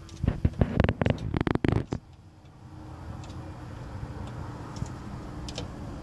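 Hens pecking: a quick run of sharp taps through the first two seconds, then only a low steady background noise.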